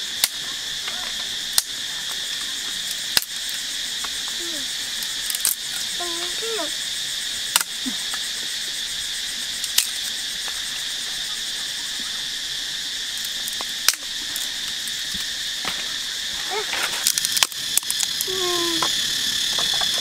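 A steady, high-pitched drone of jungle insects, with sharp snaps of dry sticks being broken by hand every second or two and a quick run of snaps a little after three quarters of the way through.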